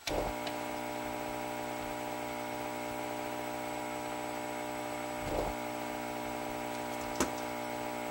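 Fluorescent desk lamp buzzing: a steady electrical hum with many overtones that starts abruptly. Two small knocks come in the second half.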